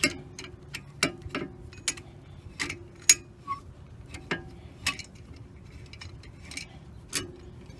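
Irregular metallic ticks and clinks as a C-clamp's screw is wound back and the clamp is worked off a brake caliper, with one louder clink about three seconds in.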